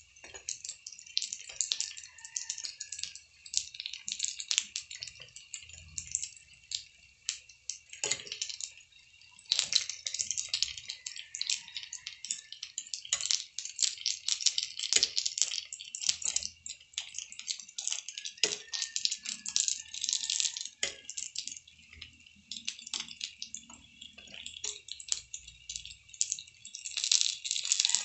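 Chicken nuggets frying in shallow oil in a pan, the oil crackling and spitting in dense irregular pops, with a few knocks of a metal utensil against the pan as they are turned.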